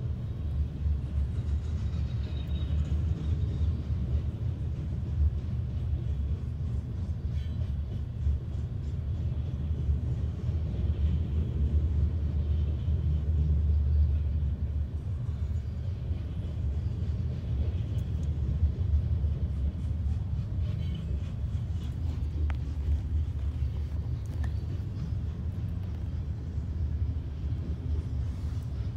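Freight train of Herzog hopper cars rolling steadily past a grade crossing: a continuous low rumble, heard from inside a car.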